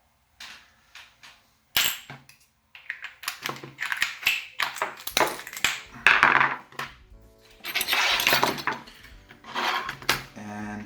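Irregular clattering and knocks of hard objects being handled, with background music in the second half.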